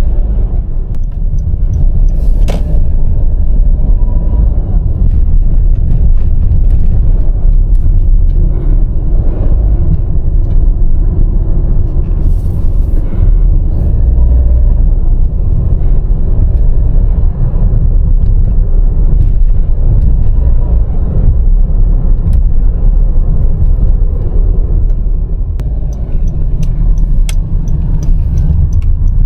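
Honda N-BOX Custom Turbo's small three-cylinder turbo engine and road noise while driving: a loud, steady low rumble, with a few faint ticks over it. The car is being recorded for an abnormal noise that the owner suspects is the electric wastegate actuator whistling.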